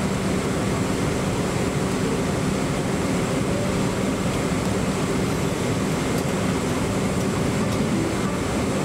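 Steady cabin noise inside a Boeing 777-300ER during pushback: air-conditioning hiss with a constant low hum from the aircraft's systems.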